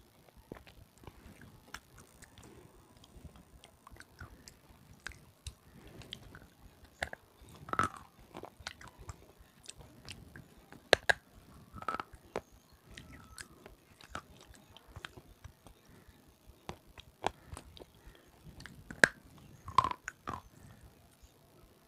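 Red slate pencil (sileti) being bitten and chewed close to a clip-on microphone. There are sharp, irregular crunches and cracks over quieter chewing, with several much louder snaps spread through.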